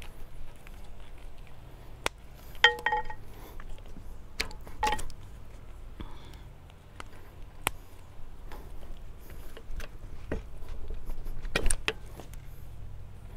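Metallic clicks and clinks of hydraulic quick-coupler hoses being uncoupled from a tractor's front-end loader valve and dust caps pushed into the couplers. The clicks come irregularly, one of them a short ringing clink about two and a half seconds in, over a low steady hum.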